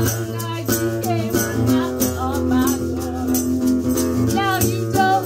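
Instrumental break in a band song with no singing: held chords over a steady bass line, with a rattling percussion beat and a few bending lead notes near the end.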